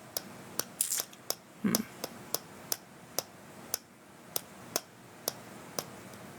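Light, sharp taps or clicks, irregularly spaced at about two a second, over a faint room hiss.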